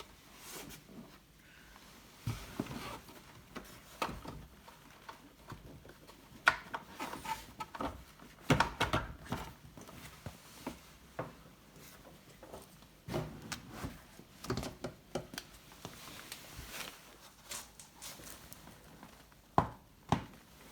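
Irregular knocks, clicks and rustles of parts being handled, with the sharpest knocks about six seconds in, a cluster a couple of seconds later, and another near the end.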